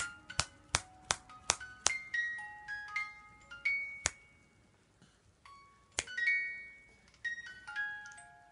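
Crib mobile's music box playing a simple chiming tune, single notes ringing out one at a time. A quick run of sharp clicks comes in the first two seconds, with single clicks about four and six seconds in.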